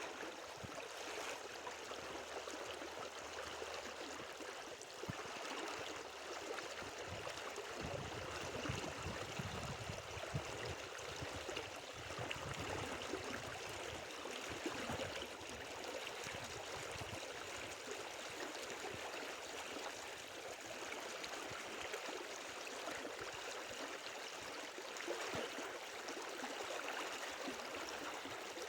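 Steady rushing and gurgling of flowing river water, with an irregular low rumble for several seconds near the middle.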